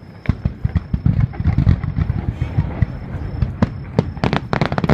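Aerial fireworks going off: scattered sharp bangs and deep rumbling booms, then a dense run of rapid crackling from about four seconds in.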